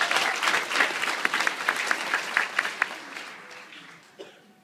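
A roomful of people applauding: dense clapping that thins out and dies away about three to four seconds in.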